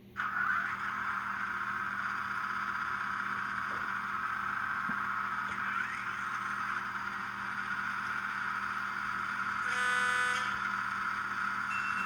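Digital sound decoder's Budd RDC diesel sound playing through a tiny sugar cube speaker in an N scale model: the engine sound starts suddenly and runs steadily, thin and high from the small speaker, with a short horn blast about ten seconds in.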